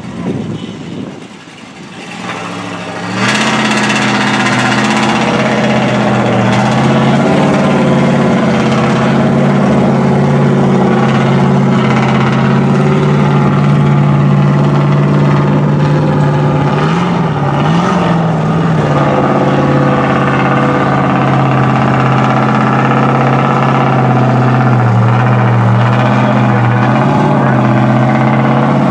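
Mud truck's engine coming on hard about three seconds in, then running at steady high revs as the truck drives on.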